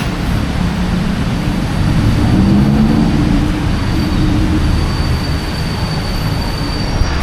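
Bangkok BTS Skytrain train running through the station: a loud, steady rumble, with a thin high whine from the wheels coming in about four seconds in.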